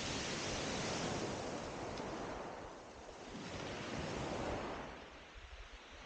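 Surf breaking on a shingle beach, swelling and falling away twice.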